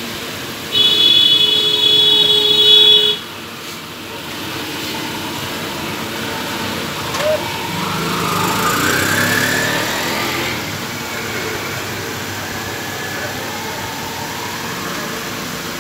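Toshiba e-Studio 2523A photocopier running its auto-adjust cycle: a steady mechanical running sound, with a louder, high-pitched whine for about two seconds near the start. About halfway through, a separate sound rises in pitch over a couple of seconds.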